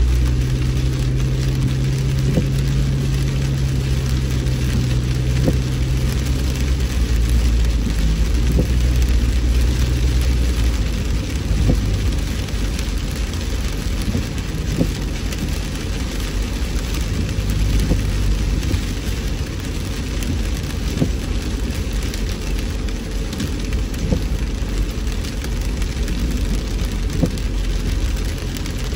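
Rain falling on a moving car, with many small drop ticks, over a steady low hum of engine and road noise. The hum drops in pitch about seven seconds in.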